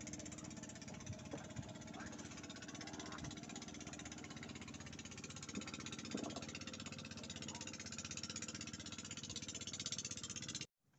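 A motor running steadily with a constant drone, with faint voices and a few light knocks over it; it cuts off abruptly near the end.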